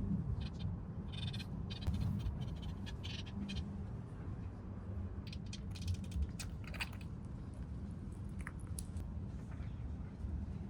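A pet budgerigar chattering and chirping in short high bursts, over the steady low rumble of the train.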